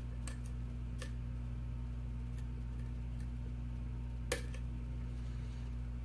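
Faint metallic clicks of a hook pick working the pins of a Yale pin-tumbler lock cylinder, a few scattered ticks and one sharper click about four seconds in, the kind of click that marks a pin setting, here pin 4. A steady low hum runs underneath.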